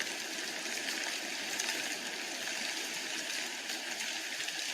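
Steady, even rush of flowing water, with no pauses or changes.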